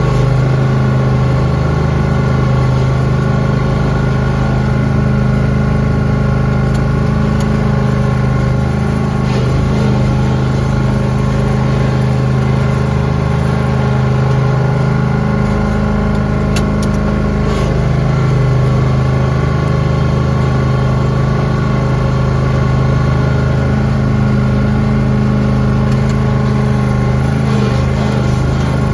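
Lawn tractor engine running steadily while plowing snow, its pitch dipping slightly now and then as the load changes.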